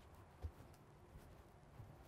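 Near silence: faint background hiss, with one soft low thump about half a second in.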